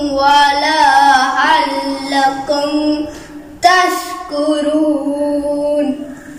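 A boy's voice reciting the Quran in a melodic, chanted style: long held notes with ornamented turns. There are two phrases, with a brief breath about three and a half seconds in, and the voice fades near the end.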